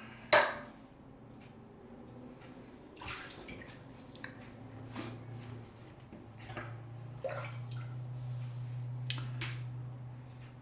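Water splashing and dripping in a bathroom sink during a wet shave, in several short bursts, the loudest right at the start. A steady low hum rises about halfway through and fades near the end.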